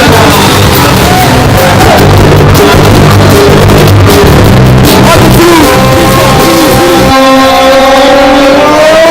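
Live band music recorded on a mobile phone, loud and overloaded, with bass and drums. About seven seconds in, the bass and drums drop out, leaving a single held note that slides upward near the end.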